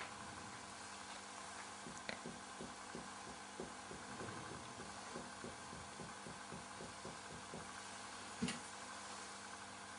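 Very quiet finger percussion of the chest: soft, dull taps at about three a second, used here to map the width of the heart's vascular bundle in the second intercostal space. A sharper click sounds about two seconds in and another near the end, over a steady faint hum.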